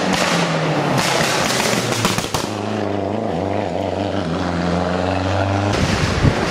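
Lancia Delta Integrale rally car's turbocharged four-cylinder engine running hard through a bend. There is a burst of sharp crackles about one to two seconds in, then a steady drone.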